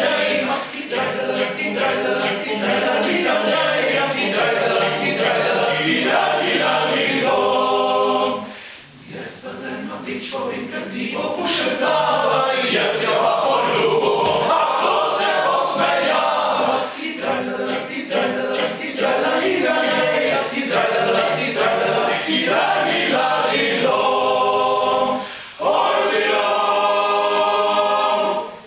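Male choir singing a cappella in Slovenian, with a short break about eight seconds in and a held closing chord near the end.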